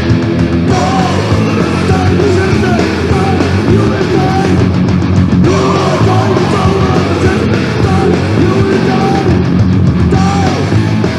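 Punk rock band playing: distorted electric guitars, bass and drums.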